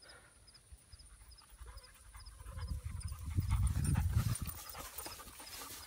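A dog panting as it runs through grass close to the phone. The sound swells to its loudest about three to four seconds in.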